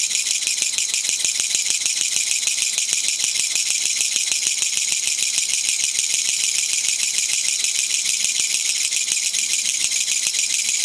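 Kutsuwamushi katydid (Mecopoda nipponensis) singing: a steady, unbroken, high-pitched rasping rattle of rapid pulses, the 'gacha-gacha' song that gives it its nickname.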